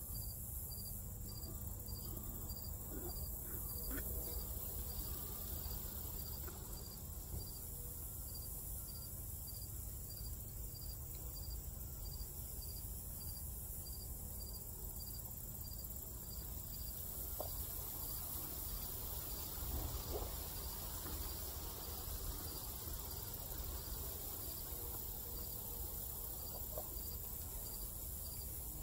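Cricket chirping steadily and evenly, about two high chirps a second.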